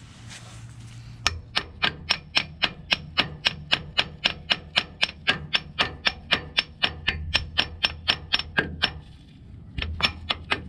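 A short hiss of PB Blaster penetrating oil sprayed from an aerosol can. Then a hand hammer strikes steel in quick, even blows, about four a second, with a pause of about a second near the end. The blows land on the end of the rusted brake camshaft to drive the automatic slack adjuster off.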